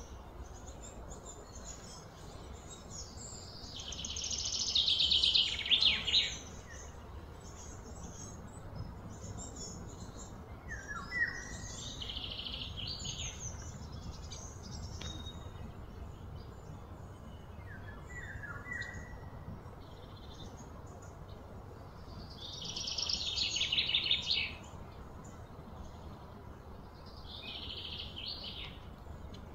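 Wild birds calling, with two louder rapid trilled phrases, one about four seconds in and one about twenty-two seconds in, and shorter chirps between them over a low steady background hum.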